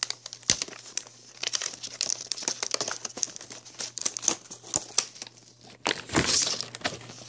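Clear plastic clamshell packaging crinkling and crackling as hands flex and pull it open: many irregular sharp crackles, louder about six seconds in.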